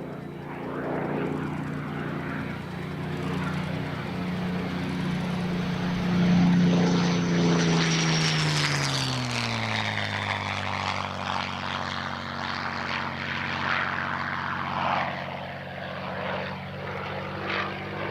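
Supermarine Spitfire Mk IX's Rolls-Royce Merlin V12 engine during a flyby: it grows louder to a peak about six seconds in, then its pitch drops as the aircraft passes and heads away, the engine still plainly heard.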